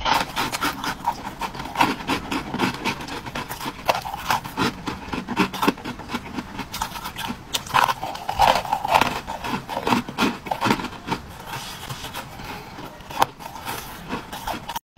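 Frost-covered green ice balls being bitten and chewed, crunching and crackling between the teeth in a dense, continuous run of crunches.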